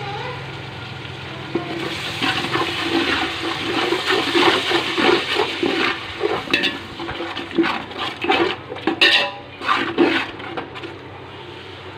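A yogurt-and-onion-tomato masala bubbling at the boil in a cooking pot while it is stirred, with a few sharp knocks of the spoon against the pot in the second half.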